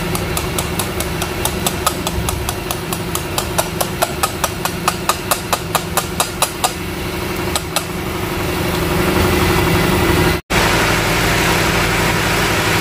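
Car engine idling, with a quick, regular ticking over it that fades out after about seven seconds. The sound drops out for an instant about ten seconds in, then the steady running carries on a little louder.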